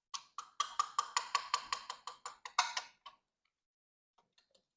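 A ratchet mechanism clicking rapidly and evenly, about five clicks a second for some three seconds, then stopping.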